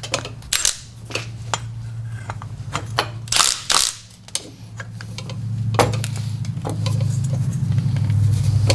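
Fuel line and fittings being handled and fitted to a fuel filter: scattered clicks and light clinks with a brief rustle about halfway through. A steady low hum runs underneath and grows louder in the second half.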